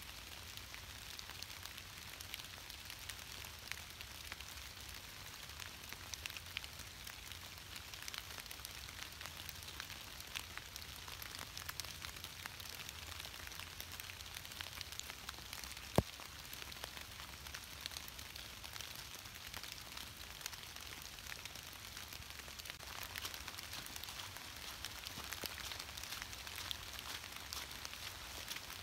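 Light rain pattering on dry fallen leaves, a steady fine crackle, with one sharp click about halfway through.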